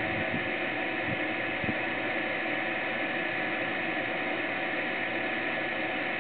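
Small marine-duty electric water pump running steadily, circulating water that streams back from stainless return tubes into a plastic tub, heard as a steady whine over an even hiss, with a few soft knocks in the first two seconds.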